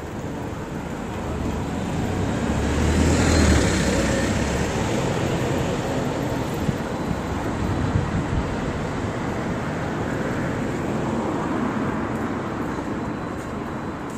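City traffic noise, with a vehicle passing: its low rumble swells to a peak about three and a half seconds in, then fades back into the steady hum of the street. A few light clicks come later.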